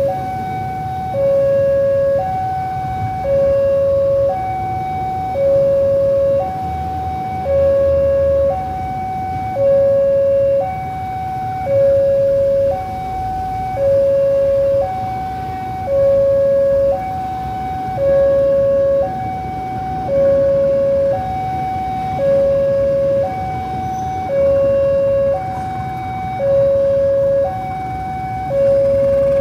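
Railway warning alarm sounding as a train approaches: an electronic two-tone signal that alternates a higher and a lower tone, each about a second long, repeating steadily, over a low rumble.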